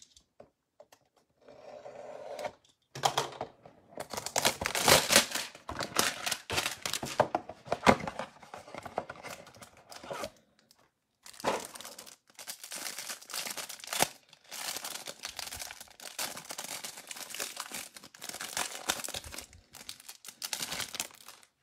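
Cellophane wrapper around a stack of trading cards crinkling and tearing as it is pulled off, with handling of the cardboard hanger box, in bursts with short pauses.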